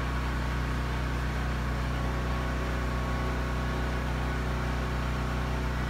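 Steady low machine hum: a constant drone that does not change or break.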